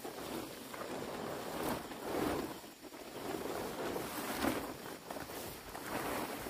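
Plastic tarpaulin rustling and crinkling as it is pulled over a stack of dry straw bundles, in uneven swells.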